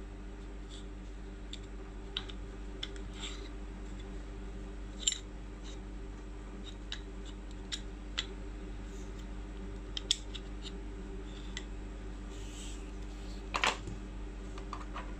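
Scattered clicks and light clacks of a VFC Sig Sauer M17 airsoft pistol being stripped by hand, as its slide, recoil spring and barrel assembly are handled and pulled apart. The sharpest clicks come about five seconds in, about ten seconds in, and as a short cluster near the end.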